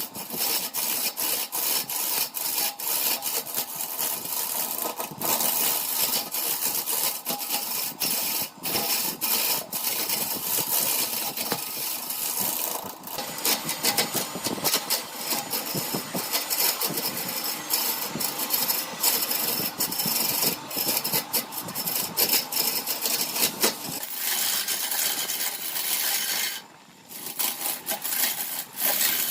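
Wood lathe running while a tool works the spinning workpiece, a steady machine noise full of rapid scraping clicks. It drops away briefly near the end, then resumes.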